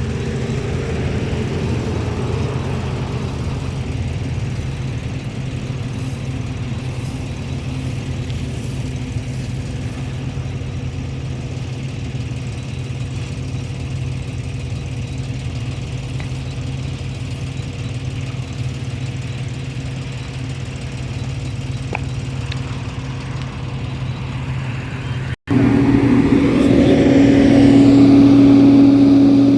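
Heavy diesel engine of a road milling machine running steadily at a constant speed. Near the end the sound cuts out for an instant and comes back louder, with a stronger hum at a higher engine speed.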